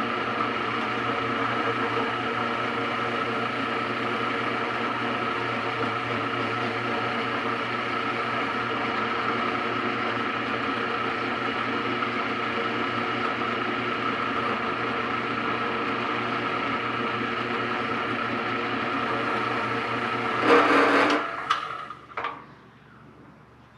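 Drill press running steadily and loud, spinning an engine valve against a Scotch-Brite pad to clean off carbon, with an even motor whine. Near the end there is a brief louder scrub, then the drill press stops.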